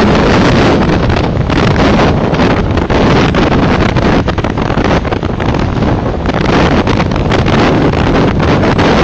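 Gale-force jugo, a southeasterly wind of about 8 Beaufort, blowing hard across the microphone: loud, unsteady wind buffeting with waves breaking against the quay beneath it.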